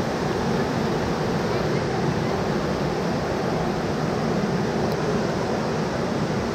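Steady hubbub of a busy street-market crowd: many overlapping voices blend into an even murmur.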